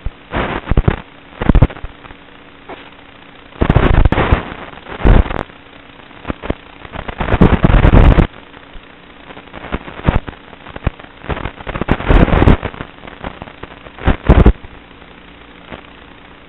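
Harsh bursts of radio static crackling from an analog FPV video link as the signal breaks up, coming and going irregularly over a low steady hum. The longest bursts come about four seconds in and again around seven to eight seconds in.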